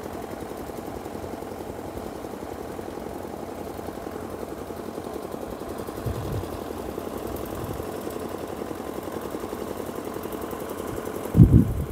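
An engine idling steadily with a fast, even throb. A brief, louder low sound comes near the end.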